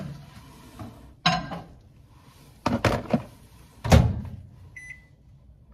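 Microwave oven being loaded and set: a few knocks and clunks as the door is opened and the cup put in, the loudest about four seconds in as the door is shut, then short keypad beeps near the end.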